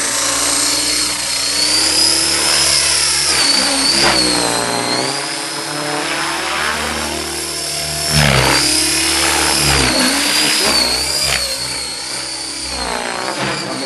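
Electric Outrage 550 RC helicopter on 6S LiPo packs taking off and flying: a high motor-and-gear whine over the rotor blade noise. The pitch sweeps up and down as it passes, loudest about eight seconds in.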